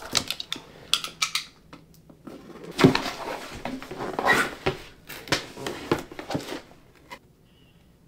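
Cardboard box being handled and opened, with irregular knocks, scrapes and rustling as the contents and a paper manual are pulled out; it dies away near the end.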